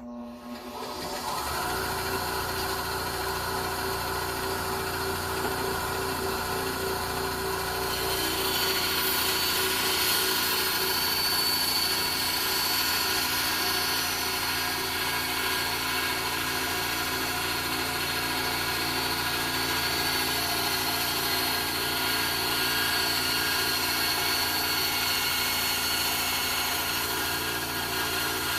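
Electric saw starting up and running steadily while cutting a wooden block along a marked diagonal line. About eight seconds in, a brighter, hissier sound joins the motor's steady hum.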